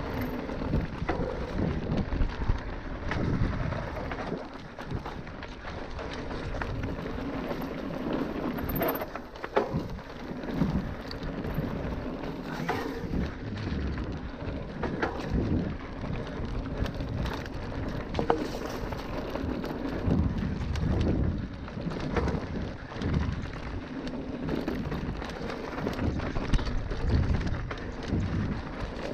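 Wind buffeting the microphone while a bike is ridden over a rough trail, with scattered rattles and knocks from the bike and the ground throughout.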